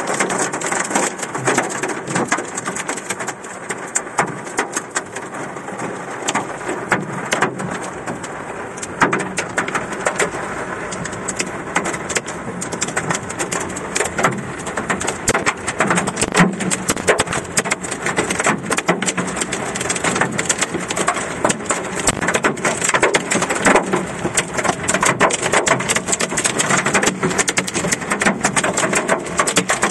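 Hail mixed with rain hitting the car's roof and windshield, heard from inside the cabin as a dense, continuous patter of sharp hits.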